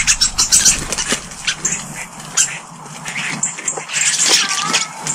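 Small garden birds chirping in quick, short, high-pitched calls, with a brief wavering whistle near the end.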